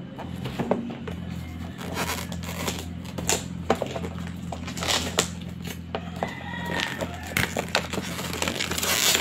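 Scissors snipping and scraping through the packing tape on a cardboard router box, with many small clicks and rustles, then the box being pried open by hand near the end. A steady low hum runs underneath.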